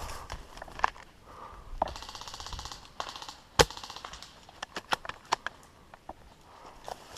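Airsoft guns firing: scattered single shots, a rapid automatic burst lasting about a second about two seconds in, the loudest single crack near the middle, then a few more shots.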